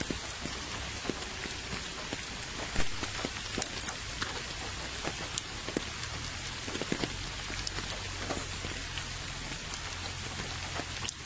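Steady rain falling onto a puddle and wet path: a continuous hiss made up of many separate drop splashes and plinks on the water, with one louder splash about three seconds in.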